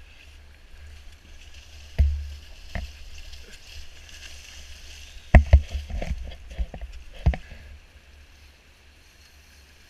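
Wading through shallow river water, with sloshing and splashing over the steady rush of the river, broken by several sharp low thumps about two seconds in, around the middle and near seven seconds.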